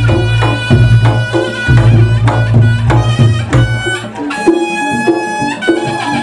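Reog Ponorogo music: a kendang drum playing quick strokes with deep bass thumps, over a reedy melody holding pitched notes. About four seconds in the deep drumming drops away and the held notes of the melody stand out.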